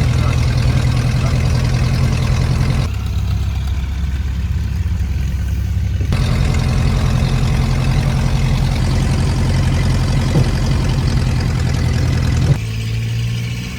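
Cessna Skyhawk's propeller engine idling, a steady low drone heard from inside the cockpit. The higher hiss over it drops away abruptly for about three seconds and again near the end.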